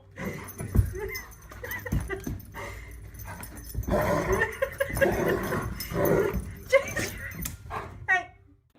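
A dog vocalising in short calls, mixed with a few sharp knocks.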